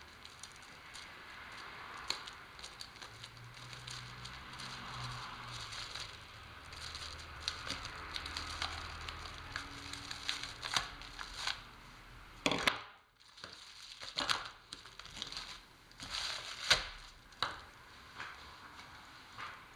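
Plastic sheeting crinkling and rustling as it is handled, with scattered sharp crackles and clicks.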